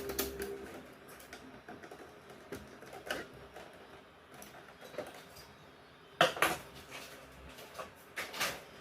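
Handling noises: scattered clicks and knocks of hard objects being moved and set down, with a cluster of louder knocks about six seconds in and another near the end.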